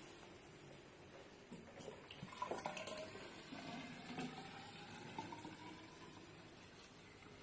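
Cold water being poured into a container to mix with coffee concentrate, faint and uneven.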